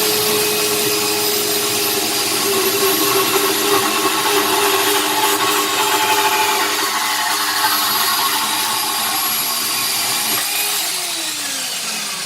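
WorkZone portable metal-cutting bandsaw running at speed 4, its blade cutting through a small steel tube under the saw's own weight with no downward pressure. About eleven seconds in, the trigger is let go and the motor's pitch falls as the blade winds down.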